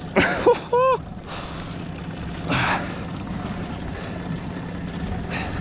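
Boat engine running steadily at idle under a wash of wind and water noise, with a short wordless shout from a man near the start.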